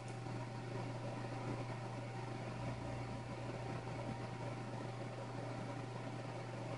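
Steady background machine hum and hiss: a low drone with a faint, thin steady tone above it over an even hiss, unchanging throughout.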